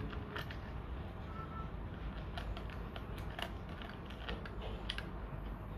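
A small screwdriver driving screws into a laptop's plastic case, giving scattered small clicks and creaks.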